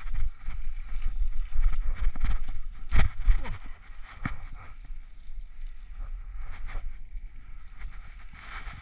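Bicycle rolling over a rough dirt path, with the low rumble and rattle of tyres and frame. About three seconds in there is a sharp thump as the bike drops onto the asphalt road, then a quieter, smoother rolling with occasional small rattles.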